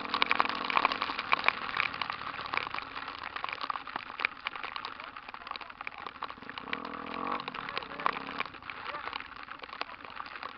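Rain pattering on the camera as a dense, steady crackle of small drop hits. A low hum rises briefly about two-thirds of the way through.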